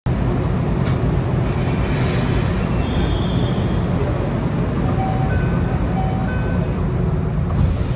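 Steady low hum and rumble of an Enoshima Electric Railway train standing still with its equipment running. A few short, faint beeps sound over it, two of them about a second apart a little past halfway.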